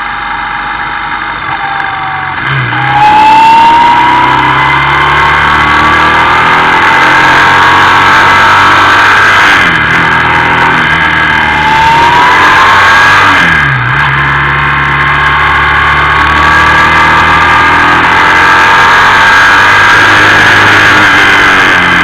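Motorcycle engine heard from a camera mounted on the bike, accelerating along the road: the pitch climbs through each gear and drops back at the shifts, over steady wind and road noise. It gets louder about three seconds in.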